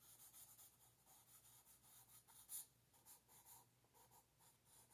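Faint scratching of a graphite pencil on paper in quick, short sketching strokes, one a little louder about two and a half seconds in.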